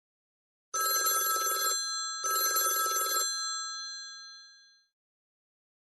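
A stock ringtone of the Samsung Metro Duos C3322 mobile phone: a telephone-bell-style ring sounding twice, about a second each with a short gap, the second ring dying away over about a second and a half.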